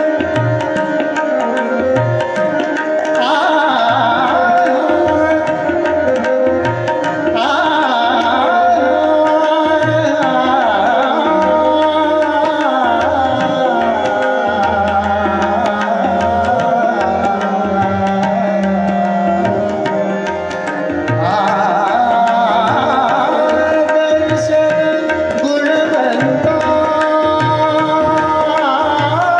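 Live Marathi natyageet: a male voice sings rapid, ornamented runs at intervals over a sustained harmonium and tabla keeping a steady rhythm.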